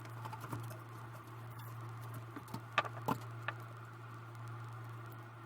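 A few small sharp clicks and taps of laptop parts being handled during disassembly, the strongest a little under three seconds in, over a steady low hum.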